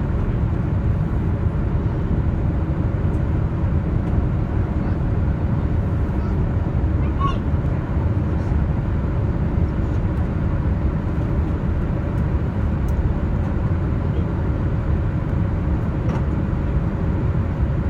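Steady cabin roar of a Boeing 787-8 airliner in flight, from the engines and the airflow over the fuselage, with a faint steady hum running through it.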